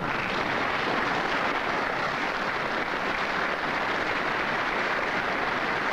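Steady applause from a crowd, uniformed firefighters among them clapping in white dress gloves, breaking out all at once.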